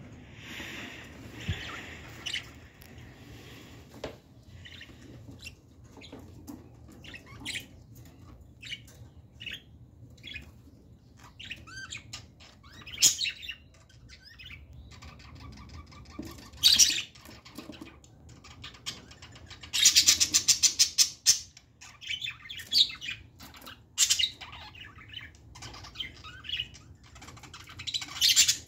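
Caged budgerigars chirping and chattering, with short sharp calls throughout and a quick run of rapid repeated calls about two-thirds of the way through.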